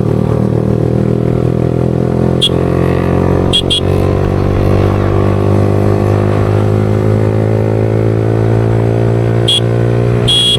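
Yamaha R15 V4M's 155 cc single-cylinder engine running through an aftermarket Leo Vince exhaust, a steady drone whose pitch creeps slowly upward as the bike gathers speed. A few short high clicks come through, two pairs about a second apart and again near the end.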